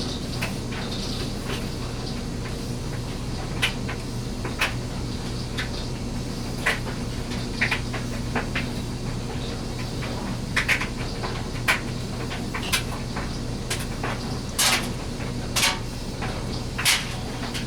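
An old Chicago Cutlery paring knife drawn across a fine water stone in edge-trailing stropping strokes to polish the edge: short, sharp scraping swishes at irregular intervals, coming more often in the second half, over a steady low hum.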